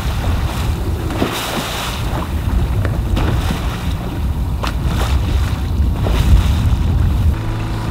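Choppy lake waves slapping and splashing against the side of a small boat, several times over, with wind buffeting the microphone in a steady low rumble.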